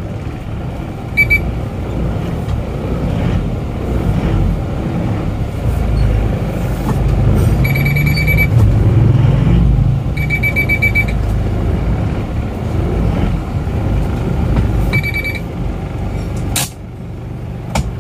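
Isuzu Panther's four-cylinder diesel engine and road noise inside the cabin on a test drive after an engine rebuild with a new cylinder liner, piston rings and gaskets; the engine pitch rises about eight seconds in as it speeds up. Short trains of rapid electronic beeps come four times.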